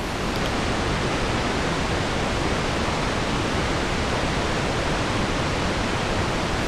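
Steady, even hiss of loud noise like static or rushing air, starting suddenly and holding level throughout.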